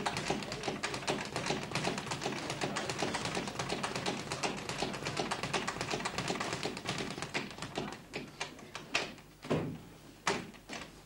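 Boxing gym during a sparring session: a fast, dense patter of taps and knocks that thins out into a few separate louder thuds about nine to ten seconds in.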